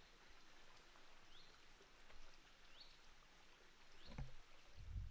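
Faint outdoor quiet with a bird giving a short rising call three times, about a second and a half apart, and a soft low bump near the end.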